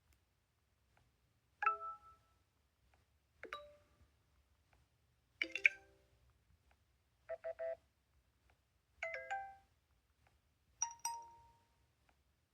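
HMD Vibe smartphone playing a run of its built-in notification tones through its speaker: six short chimes, each a different little melody under a second long, about two seconds apart.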